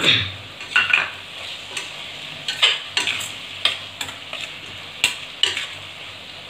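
A steel spoon stirring freshly added chopped tomato into frying spice masala in a stainless steel pot. A knock comes right at the start, then sharp scrapes against the metal about twice a second over a steady sizzle.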